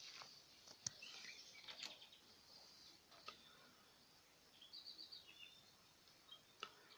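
Near silence with faint bird chirps, a short run of chirps about five seconds in, and a few small clicks.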